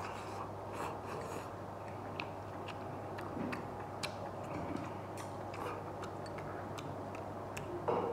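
Close-up eating sounds: scattered small clicks of chopsticks against a porcelain bowl, with soft chewing and mouth sounds, over a faint steady low hum.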